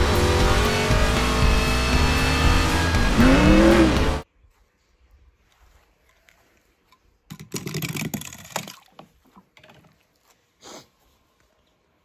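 Animated-film race-car sound: a stock car's engine running flat out for about four seconds, its pitch swooping up and then down near the end, then cut off abruptly. A brief rustle and a few light clicks follow about eight seconds in.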